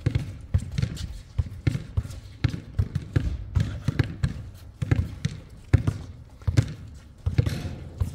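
Basketball bouncing on a hard court, mixed with players' sneaker footsteps: a run of irregular thuds.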